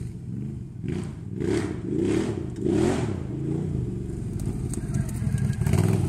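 2013 Can-Am Outlander 800R Max ATV's V-twin engine through an HMF slip-on exhaust, rising and falling in pitch several times, then running steadily and louder near the end as the machine comes close.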